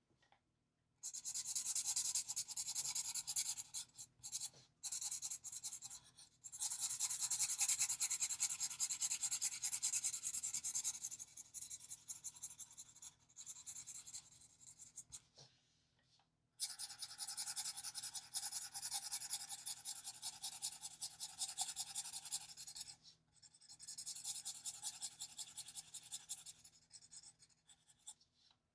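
Alcohol marker scribbling on paper in quick back-and-forth strokes. The scratching comes in stretches of a few seconds with short pauses between them.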